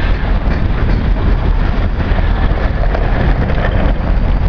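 Loaded covered hopper cars of a heavy freight grain train rolling past on the rails, a loud, steady low rumble.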